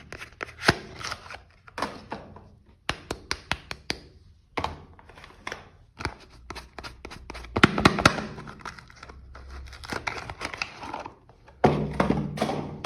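Soap packaging being unwrapped by hand: the wrapping crinkles and tears in short rustling bursts, with sharp clicks and an occasional thunk as the bar and its box are handled.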